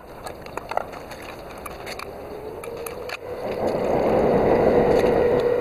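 Water poured from a plastic bottle into a metal pot, the splashing pour starting about three seconds in and growing louder, with a steady ringing tone that rises slightly as the pot fills. Before it, a few light clicks and knocks.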